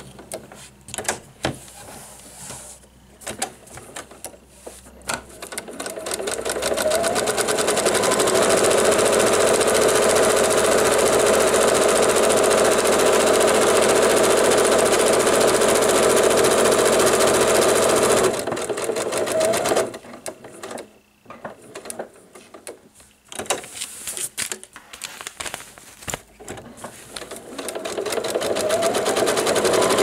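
Electric sewing machine stitching through fabric and foundation paper, running in stretches. It stops at the start, winds up with a rising whine a few seconds in and runs steadily, stops for several seconds past the middle with only small handling noises, then winds up again near the end.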